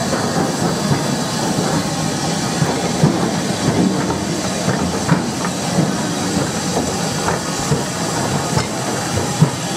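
Small saddle-tank steam locomotive running past close by, with steady steam hiss and irregular clanking and knocking from its wheels and motion on the rails, and the flat wagons behind it rattling.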